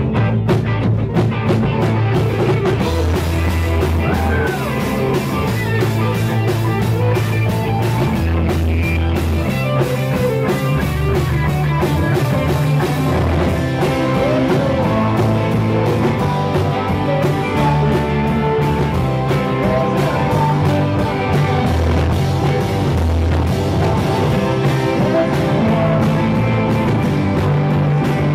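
A rock band playing live: electric and acoustic guitars, bass guitar, drums and keyboard, with a male singer at times.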